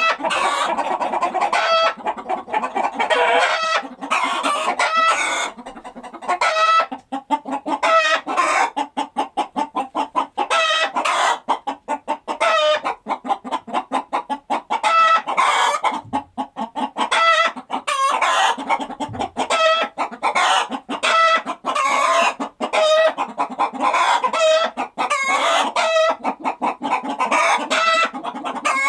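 A flock of chickens in a coop clucking and squawking, many birds calling over one another in quick overlapping bursts, with a rooster crowing among them.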